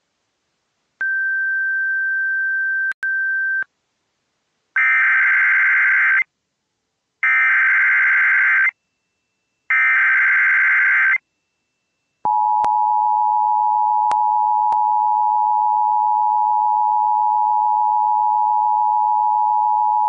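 Emergency Alert System tones over a radio stream: a steady high beep for about two and a half seconds, then three short buzzy bursts of SAME digital header data carrying a Child Abduction Emergency (AMBER Alert) code, then the two-tone EAS attention signal starting about twelve seconds in and holding steady.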